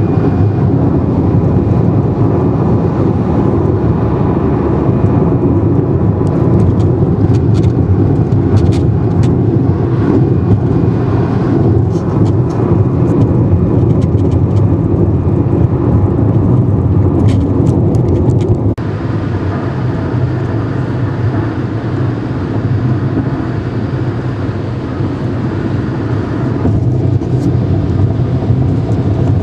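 Steady cabin noise of a 2011 Hyundai Elantra cruising at about 80 mph: tyre, wind and engine noise, with a few light clicks in the first half. About two-thirds of the way through the noise drops a little and changes abruptly.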